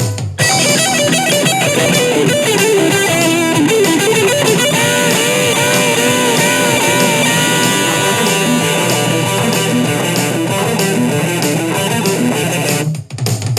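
Instrumental break of a rock song: distorted electric guitars and bass with drums, and a lead guitar melody with bends and vibrato. The band drops out briefly near the end.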